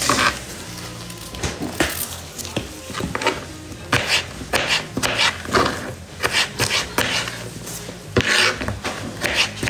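Kitchen knife cutting a cucumber on a cutting board: a run of uneven cuts and scrapes of the blade against the board, heavier about four seconds in and again near the end.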